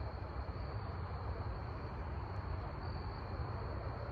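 Crickets trilling steadily, a continuous high-pitched chorus over a low steady rumble.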